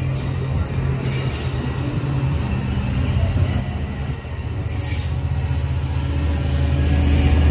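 Amtrak California bilevel passenger cars rolling past, their wheels rumbling on the rails, with a steady low diesel hum from the train's F59PHI locomotive growing louder toward the end as it comes closer.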